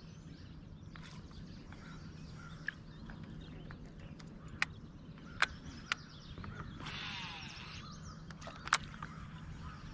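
Quiet outdoor ambience on a lake, with a few light clicks and ticks scattered through it and a brief hiss about seven seconds in.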